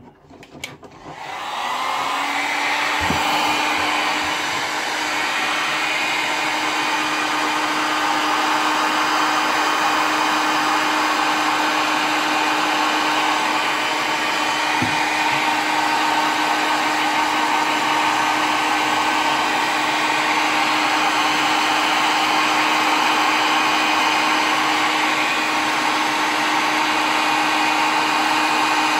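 Electric heat gun starting up about a second in, then running steadily: a rush of blown air with a steady hum underneath, as it heats a lead jig head for powder coating.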